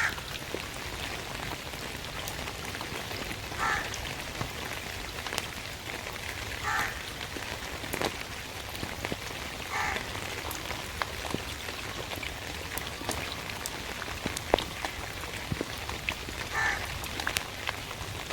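Steady rain with scattered drips, and a raven giving short calls every few seconds, with a longer gap in the middle.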